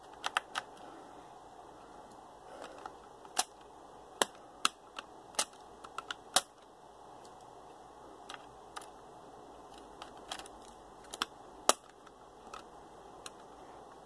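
Phillips screwdriver working the memory-cover screw, and the metal-and-plastic panel on the underside of a Dell Latitude D630 laptop being handled: scattered sharp clicks and taps at irregular intervals.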